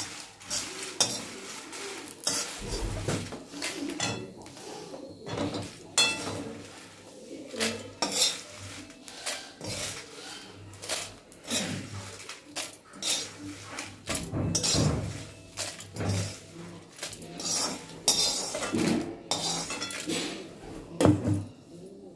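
Metal ladle scraping and clinking against a wok as fried dry red chillies are stirred and scooped out into a steel bowl, giving irregular sharp clinks, one or two a second.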